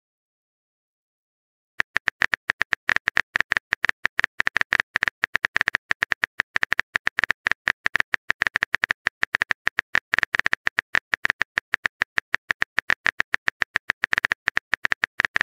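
Typing sound effect from a texting-story animation: a fast, even run of short synthetic keyboard clicks, one per letter as the message is typed out. It starts about two seconds in, after a near-silent pause.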